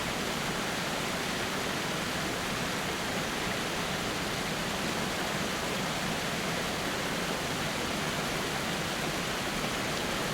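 Waterfall's water rushing steadily, an even unbroken noise.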